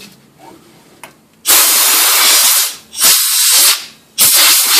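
Compressed-air blow gun blowing dirt off the top of a fuel tank around the fuel pump, so that none falls in when it is opened. Faint clicks, then from about a second and a half in, three loud hissing blasts with short gaps between them, the last still going at the end.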